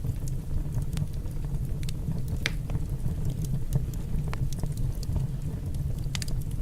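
Wood fire burning in a fireplace, with scattered sharp crackles and pops over a steady low rumble.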